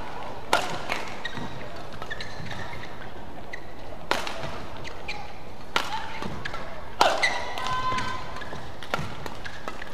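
Badminton rally: rackets striking the shuttlecock in sharp cracks at irregular intervals, the loudest about four, six and seven seconds in, with brief high shoe squeaks on the court mat between shots, over the hum of an indoor arena.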